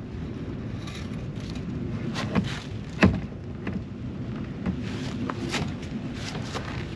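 A few light knocks and clicks of metal parts and tools being handled while a trolling-motor mount is lined up, the sharpest knock about three seconds in, over a steady low hum.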